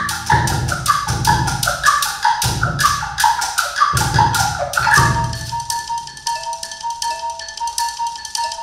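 Percussion ensemble playing: marimbas and xylophones strike quick, rhythmic mallet notes over low drum strokes about once a second. After about five seconds the drums stop and only lighter, high mallet notes carry on.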